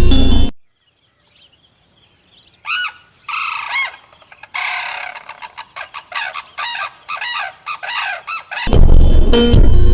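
An animal calling: two or three drawn-out cries that rise and fall in pitch, then a quick run of short arched calls, several a second. Loud music cuts off just before the calls and comes back near the end.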